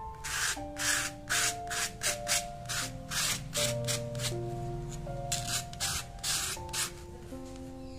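A painting tool rasping over a canvas in short repeated strokes, about two or three a second, easing off briefly midway, as acrylic paint is applied. Slow background music of held keyboard notes plays under it.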